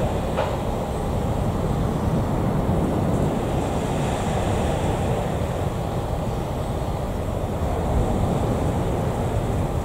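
Boeing 737 MAX 8's CFM LEAP-1B turbofans at takeoff thrust: a steady low rumble as the jet lifts off and climbs out.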